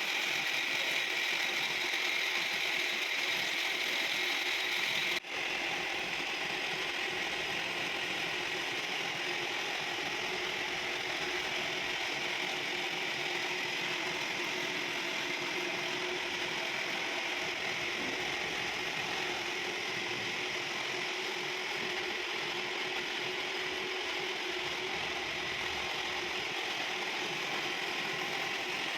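Metalworking machine tool running steadily, its gears and mechanism whirring. The sound breaks off sharply for an instant about five seconds in, then carries on.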